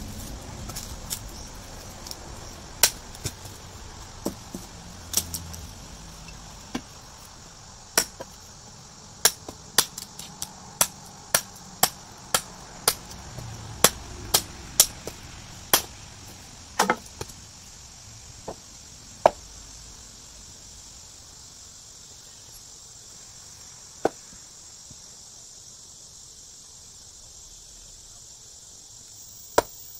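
A large 1095 carbon-steel camp chopper knife chopping into green wood: about two dozen sharp chopping strikes, coming roughly twice a second in a run through the middle, then only a few scattered ones. A steady high insect buzz runs underneath.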